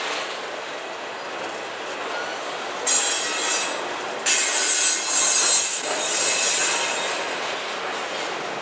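Freight train's autorack cars rolling past with a steady rumble of wheels on rail. About three seconds in the wheels let out a loud, high-pitched squeal, which breaks off briefly and returns for about three seconds.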